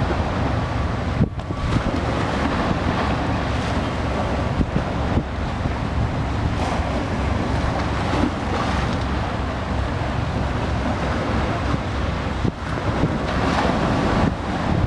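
Wind buffeting the microphone in a steady low rumble, over the wash of choppy open water.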